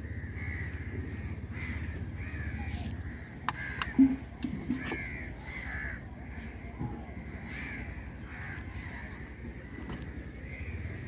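A flock of crows cawing over and over, several calls a second, over a steady low rumble. A few sharp knocks come about four seconds in, one of them loud.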